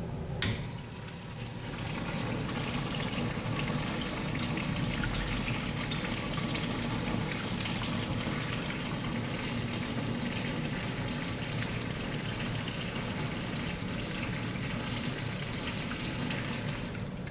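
A click as the push button of a Kohler toilet's flush valve is pressed, then a very long, steady rush of flushing water that goes on for about sixteen seconds before cutting off near the end.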